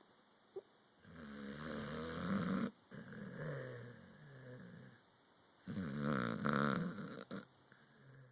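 Sleeping pit bull snoring: two long, drawn-out snores, the first starting about a second in and the second near the end. A brief faint squeak comes just before them.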